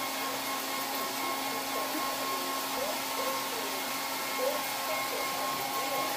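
Steady whine and hiss of an electric motor running, with faint voices underneath.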